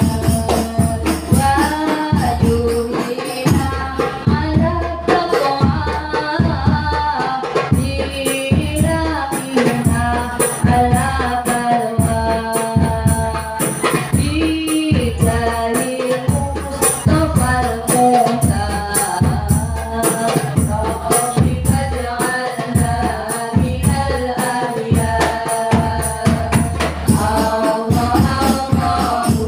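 Women's group singing an Islamic sholawat together into microphones, accompanied by rebana frame drums keeping a steady, even beat.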